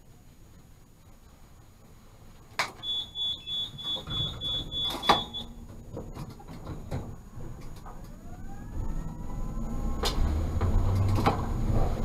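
Tatra T3 tram's door warning beeper sounding about three short high beeps a second, with a clunk as the doors close. Then the traction motors whine, rising in pitch, with a growing rumble as the tram pulls away.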